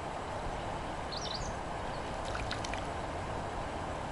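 Steady rushing of flowing river water, with a short high bird chirp about a second in.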